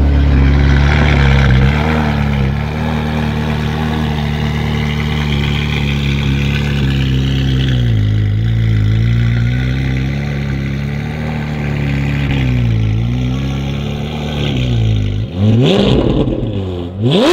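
Ferrari 458 Italia's V8 running at low revs as the car pulls away slowly, its pitch dipping and rising a few times. Near the end come two quick, sharp throttle revs, the second the loudest.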